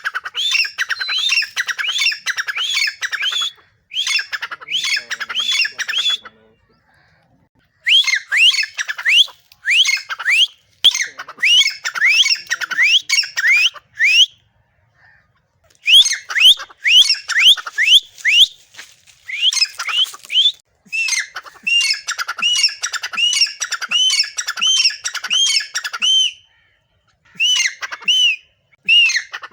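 Grey francolin (teetar) calling: long runs of repeated shrill notes in bouts, broken by pauses of about a second. Early notes sweep upward; in the later runs each note rises and then falls.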